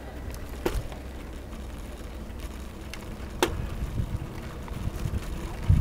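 Low wind and road rumble while riding a bicycle on a paved path, with two sharp clicks, one under a second in and one about three and a half seconds in.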